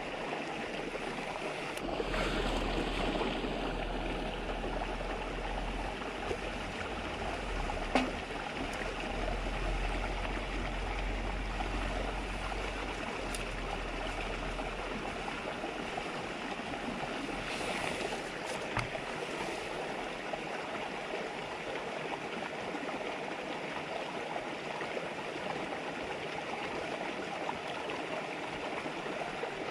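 River babbling steadily in a shallow stream, with a few sharp clicks, the loudest about eight seconds in.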